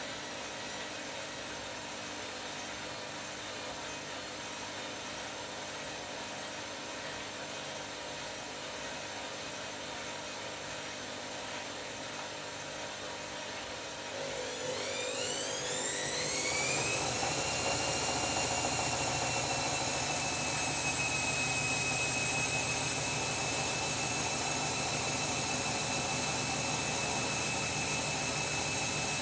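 Washing machine running, then its motor ramping up into a spin about halfway through: a whine rises in pitch and gets louder, then settles into a steady high whine as the drum holds spin speed.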